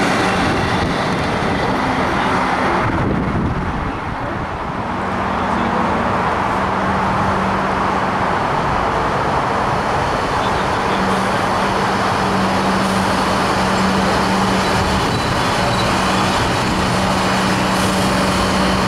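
Comeng suburban electric trains: one running out past the platform with loud rolling noise, cut off sharply about three seconds in, then another approaching and drawing into the platform with a steady low hum over the rolling noise.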